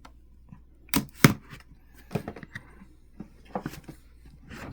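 A cardboard motherboard box being handled: a few sharp knocks and taps, the loudest two about a second in, with smaller clicks and light rustling after.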